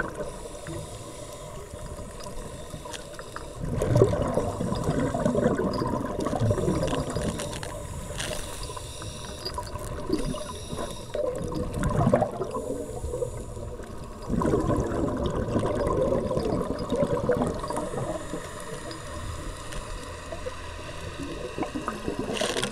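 Scuba divers' exhaled air bubbling out of their regulators underwater, in loud bursts a few seconds apart over a steady water background.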